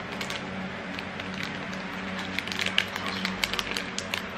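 Foil-lined plastic wrapper crinkling and crackling as it is peeled open by hand, the crackles thickest in the second half, over a steady low hum.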